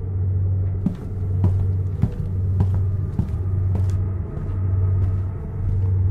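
Low rumbling drone that swells and dips about once a second, with a run of sharp clicks about every half second through the middle.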